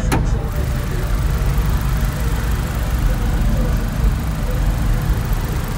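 Car engine idling steadily, heard close up in the open engine bay, with a brief click right at the start.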